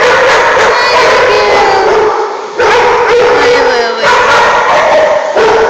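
Several dogs barking and yipping at once, loud and almost without a break, dipping only briefly about two and four seconds in.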